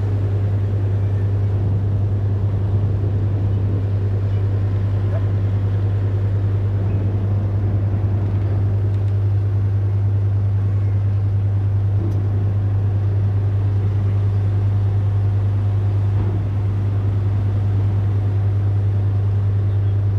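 Car ferry's engines running with a loud, steady low drone.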